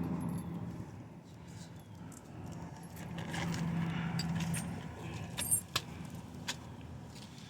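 Metal hardware clinking and rattling as car interior trim and seat parts are worked loose, with a few sharp clicks about two-thirds of the way through, over a low steady hum.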